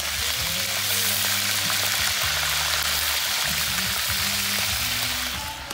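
Hot oil sizzling steadily as fish fry in a pot, with the bass line of background music running underneath.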